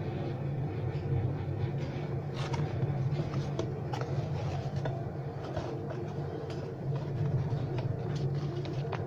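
Paper and thin cardboard being handled: an instruction sheet and a kit box lid and flap crackling and clicking now and then. Underneath is a steady low hum.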